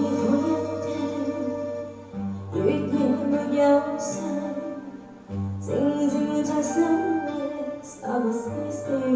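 A slow ballad playing: a singing voice in phrases over soft instrumental backing.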